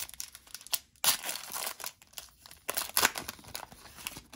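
Wrapper of a Panini Contenders hockey trading card pack being torn open and crinkled by hand, in several crackling rips, the loudest about a second in and about three seconds in.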